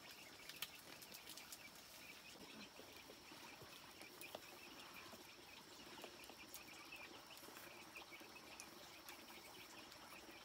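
Faint rural ambience: a steady high insect drone with many short bird or insect chirps, and a few soft clicks.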